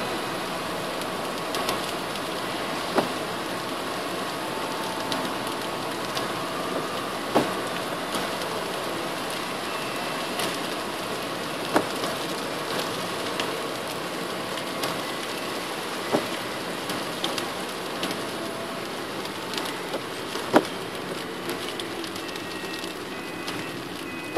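Car driving in rain on a wet road: a steady rushing of rain and tyre spray, with a sharp tick about every four and a half seconds.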